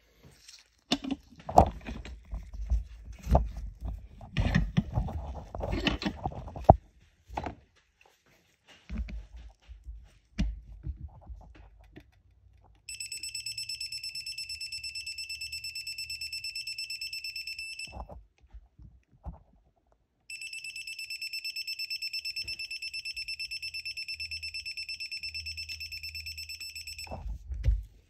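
A run of sharp clicks and knocks over the first several seconds of wrench work on the bolts. Then a digital torque wrench's beeper sounds twice, in two long high beeps of about five and seven seconds, signalling that the set torque of 20 newton-metres has been reached.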